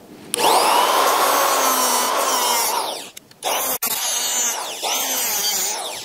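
Corded 3-inch cutoff tool with an abrasive disc cutting into the steel can of an oil filter: a high whine with grinding over it. It cuts off suddenly about three seconds in and starts again half a second later.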